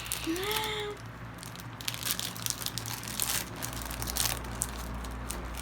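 Plastic snack wrapper of an Oreo pack crinkling and crackling as it is handled and torn open, with many irregular crackles.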